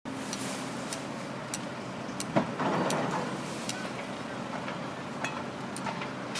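Caterpillar 324D tracked excavator's diesel engine running steadily at work, with scattered metallic clicks and knocks. A loud knock comes about two and a half seconds in, followed by a burst of noise lasting under a second.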